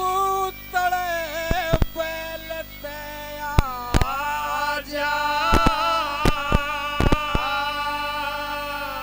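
Male Haryanvi ragni singer holding a long, wordless melodic line through the microphone, his pitch bending and sliding, with scattered dholak strokes.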